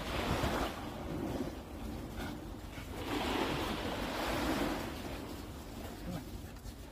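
Small waves washing onto a sandy shore, a steady wash that swells louder for a couple of seconds midway and then fades.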